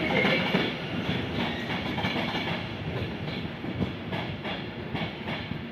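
Electric multiple-unit passenger trains running through on the tracks, their wheels clicking over rail joints, the sound slowly fading as they move away.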